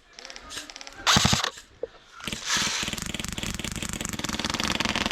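Airsoft gun firing on full auto at about 20 rounds a second: a brief noisy burst about a second in, then a long, unbroken stream of very fast, even shots starting about two seconds in.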